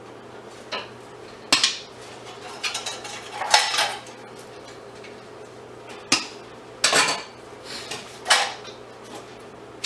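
Loose metal scrap parts clinking and clattering as an item is taken apart by hand: about eight separate clanks and short rattles, with a faint steady hum underneath.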